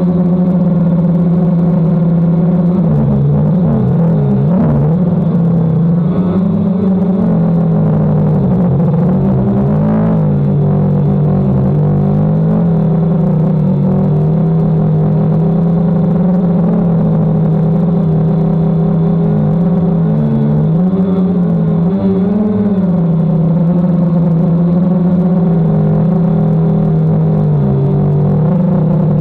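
DJI Phantom quadcopter's motors and propellers humming steadily in flight, loud and close, the pitch wavering up and down briefly a few times as the throttle changes, around 3 to 5 seconds in, about 10 seconds in, and again around 20 to 22 seconds in.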